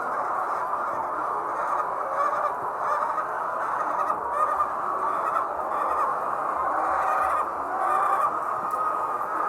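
A large flock of layer hens clucking and calling all at once in a dense, steady chorus of many overlapping short calls.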